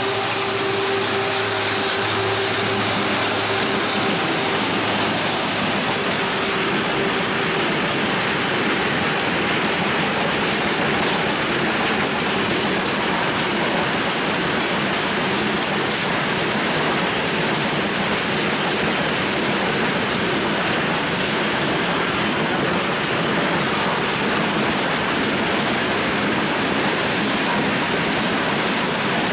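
WDG-4 diesel-electric freight locomotive and its train of wagons running past: the engine's steady drone over the first several seconds, then the continuous rumble and rattle of wagon wheels rolling over the rails, with a thin high wheel squeal.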